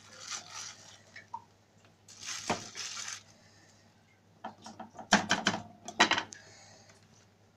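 Tomato sauce being scooped out of a plastic bag in a metal bowl and dropped onto a tray of chicken: plastic crinkling and scraping, then a quick run of sharp clinks and taps against metal about two-thirds of the way in as the spatula knocks the sauce off.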